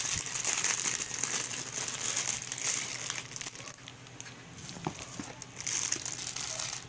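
Clear plastic wrapping crinkling as hands unwrap a tablet's charging cable and adapter. The rustling is busy at first, eases off about four seconds in, and picks up again near the end.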